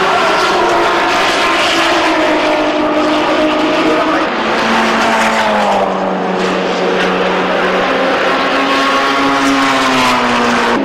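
Race car engines running loudly. Their pitch drops about halfway through and rises again near the end as they ease off and accelerate.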